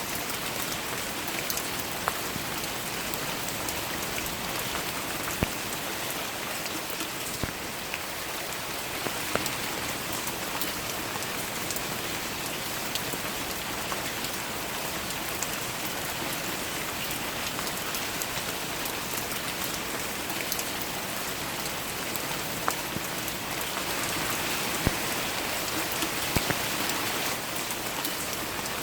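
Steady rain: an even hiss with scattered sharper drops hitting close by.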